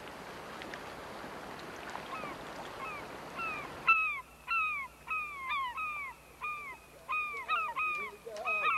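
Seabirds calling in a quick series of short, falling calls, about two a second, louder from about four seconds in. Before that, a steady hiss.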